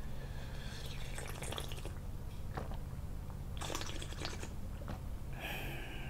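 Slurping and gulping of pickled-radish brine drunk straight from a small plastic tub, in three bouts.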